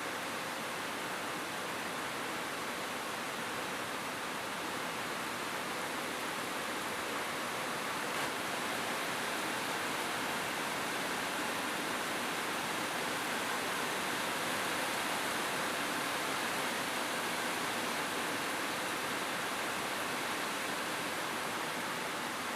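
Steady rain falling on a rooftop: an even, unbroken hiss of many drops.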